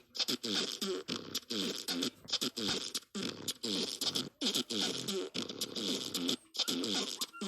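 A rapid string of fart sound effects: short pitched blasts, each falling in pitch, about one and a half a second.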